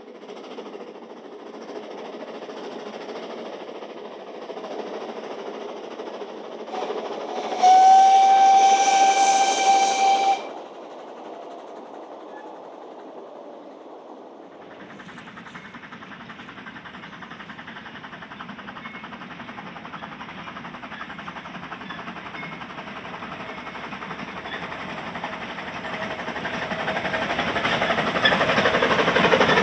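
Narrow-gauge steam locomotive whistle: one long, loud, steady-pitched blast of about three seconds, starting about eight seconds in, over the hiss of the engine. From about halfway through, the sound of the working train builds and grows steadily louder as it approaches.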